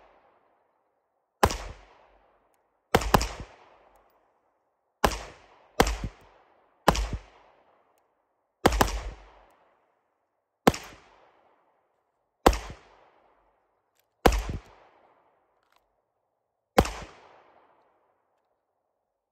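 Two handguns firing slow, aimed single shots, about a dozen in all, one to two seconds apart and now and then two almost together, each shot trailing off in an echo. The last shot comes a couple of seconds before the end.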